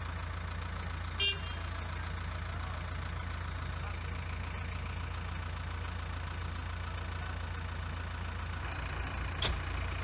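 JCB 3DX backhoe loader's 4.8-litre naturally aspirated four-cylinder diesel running steadily at low revs while the machine works its hydraulic arms. A short high-pitched tone sounds about a second in.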